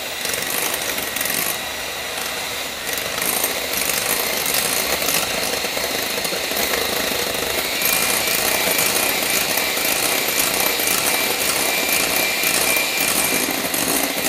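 Electric hand mixer running steadily with a thin whine, its twin beaters whipping egg whites in a glass bowl toward soft peaks. A second, lower whine joins in about halfway through.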